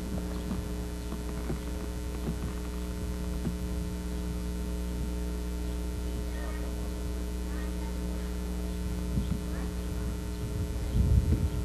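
Steady electrical mains hum on the recording, with a few faint knocks and a louder low thump about eleven seconds in.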